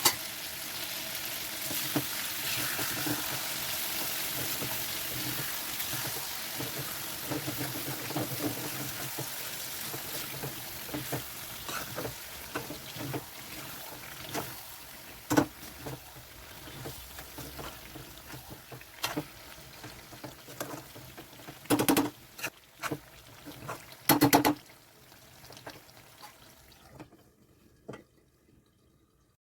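Pumpkin sabzi sizzling in a pan, with a spoon or spatula stirring and knocking against the pan several times. The sizzle slowly fades and stops near the end.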